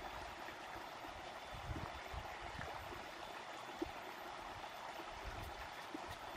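Shallow river flowing steadily over rocks and stones.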